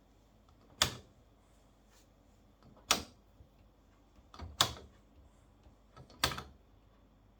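Four sharp clicks from a Hotpoint Aquarius WMA washing machine in its diagnostic read-out mode, spaced about one and a half to two seconds apart.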